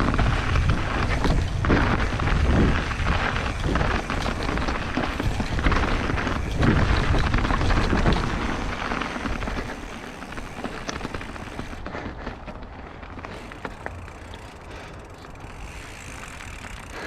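Wind rushing over the camera microphone and the tyres and frame of an Evil Offering mountain bike rattling over a rocky trail on a descent. It is loud for about the first nine seconds, then eases off to a quieter rumble.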